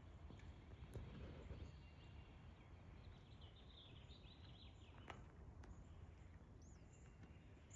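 Near silence: faint outdoor background with distant small birds chirping, a short run of quick chirps about three to four seconds in, and a single faint click about five seconds in.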